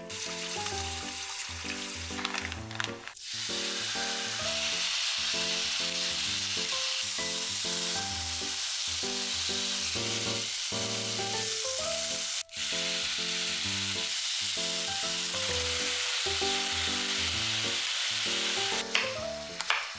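Cooking water poured off noodles through a metal sieve into the sink, then thin slices of marinated bulgogi beef sizzling steadily in a hot frying pan as they are turned with tongs. Soft background music plays throughout.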